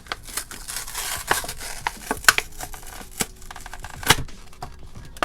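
Toy packaging being torn open: tearing and crinkling with a run of sharp snaps and clicks, a few of them louder near the middle and about four seconds in.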